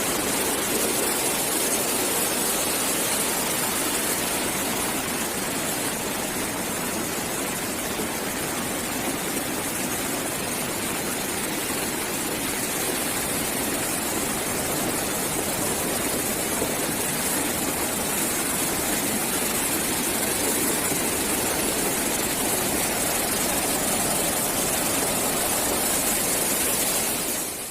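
Steady rush of fast-flowing floodwater: one continuous even noise without breaks or distinct impacts.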